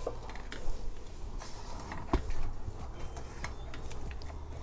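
Wooden spoon stirring and scraping through a thick, curdled milk-powder and sugar mixture in a steel pan, with scattered light clicks against the pan and one sharper knock about two seconds in.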